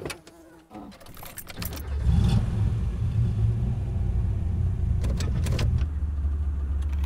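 Keys jingling and clicking in the ignition of an old farm pickup, then its engine starts about a second and a half in and settles into a steady idle. A few light clicks come near the middle.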